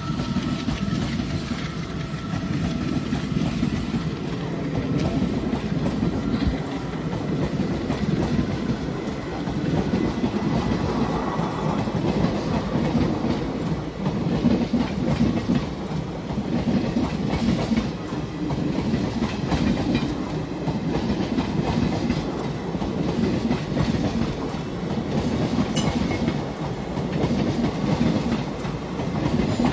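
Passenger coaches of an Indian Railways express rolling past at speed: a steady rumble of wheels on rail with a continuous clickety-clack as the bogies cross the rail joints.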